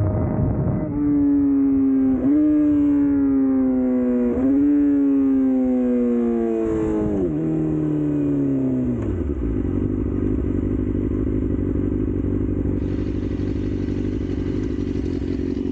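Yamaha R6 inline-four sport bike engine decelerating, its revs jumping up briefly twice with downshifts and sagging between them. The revs then fall away steeply and it settles to a steady idle for the rest.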